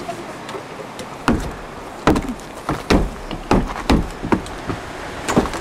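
A front door being opened, then a run of heavy thuds, most about three-quarters of a second apart, that sound like footsteps going in through the doorway. A steady hiss lies underneath.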